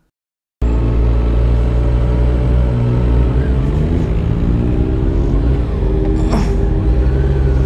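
Honda sport motorcycle engine running under load in low gear on a steep uphill climb. The sound starts abruptly about half a second in, and its pitch rises and falls as the throttle changes midway.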